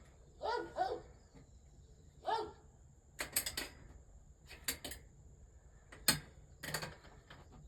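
A dog's short vocal sounds twice in the first few seconds, followed by several sharp knocks and clicks.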